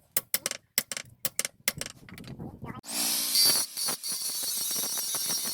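A quick run of sharp taps, then, about halfway through, a grinder cuts in on the steel with a harsh, steady hiss that keeps going.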